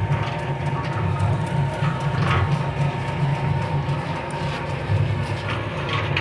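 Commercial spiral dough mixer running, with a steady low motor hum, a thin steady whine above it and a few light knocks.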